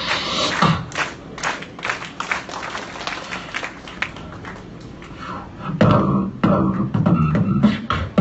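Live beatboxing: a steady rhythm of vocal kicks, snares and hi-hat clicks, growing louder and fuller with a deep bass tone about six seconds in.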